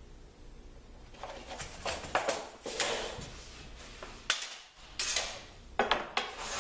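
Knocks, scrapes and clatter of tools and boards being handled during drywall measuring and marking. An irregular run of sharp knocks starts about a second in, with the loudest near the end.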